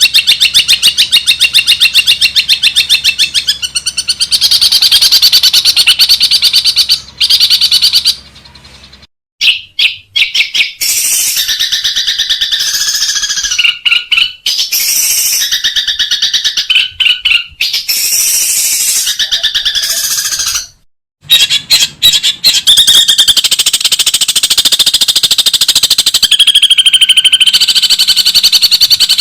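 Long-tailed shrike (cendet) singing loud runs of fast-repeated, high chattering notes, broken by two short silences about 9 and 21 seconds in.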